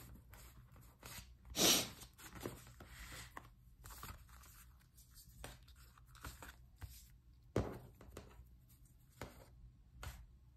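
Sticker sheets and sticker packs being handled and laid out on a desk: scattered paper rustling and sliding, the loudest rustle about two seconds in.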